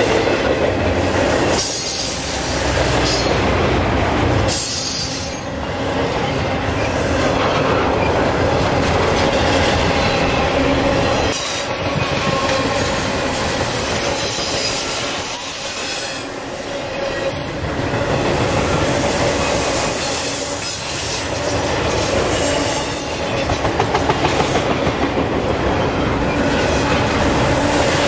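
Double-stack intermodal well cars rolling past, steel wheels clicking over the rails with a steady squeal from the wheels.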